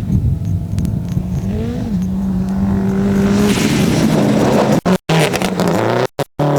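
Rally car engine running hard, its note steady with a brief swoop in pitch. About halfway in, a loud rush of tyre and road noise builds as the car comes close. The sound cuts out abruptly twice near the end.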